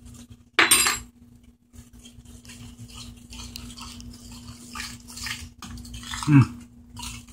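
Metal spoon scraping and clinking against a pot as thick, cooked-down corn is stirred, with one sharp, louder scrape about half a second in.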